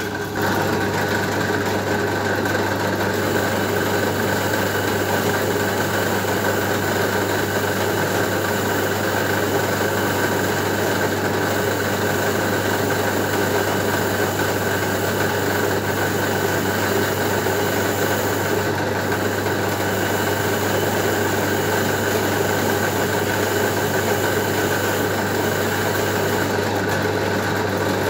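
A motor running steadily: a constant, unchanging hum with a deep drone and a thin higher tone over it.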